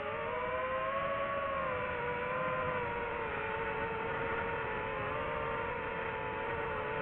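DJI FPV drone's motors and propellers whining, picked up by the drone itself, the pitch wavering up and down as the throttle changes, with a slight rise near the start.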